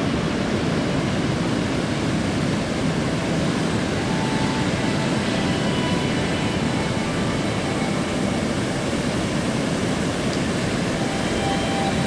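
Steady, unbroken noise of ocean surf breaking along a long sandy beach, heaviest at the low end.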